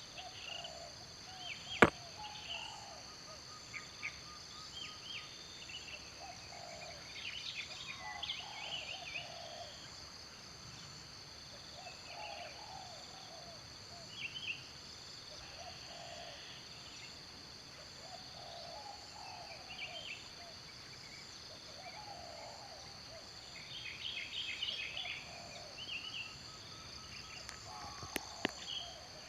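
Steady high-pitched chorus of insects, crickets or similar, with short bird calls coming and going over it. A sharp click sounds about two seconds in, and two fainter clicks near the end.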